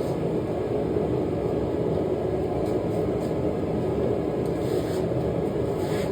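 Small blacksmithing forge running: a steady, even low rushing noise of burner flame and air.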